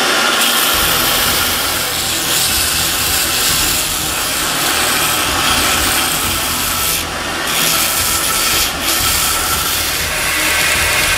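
Belt grinder running with a wooden knife handle pressed against its abrasive belt: a loud, steady rasping of wood being sanded over the motor's hum, easing off briefly twice in the second half.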